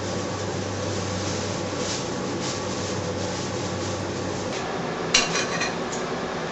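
Steady rumbling noise with a low hum, broken by a short, sharp clatter of several quick knocks about five seconds in.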